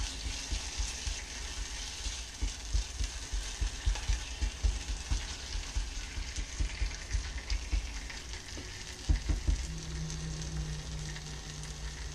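Bhuna masala sizzling in hot ghee in a small saucepan, stirred with a wooden spatula that knocks and scrapes against the pan, with the loudest knock about nine seconds in. A low steady hum comes in near the end.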